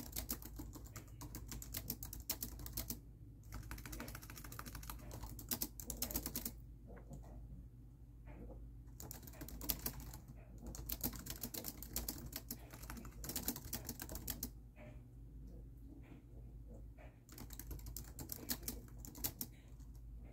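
Fast typing on a laptop keyboard, key clicks in runs of a few seconds broken by short pauses.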